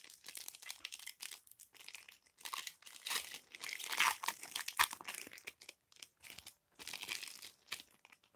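Foil trading-card pack wrapper being crinkled and torn open by hand, an irregular crackle of plastic foil that is loudest midway.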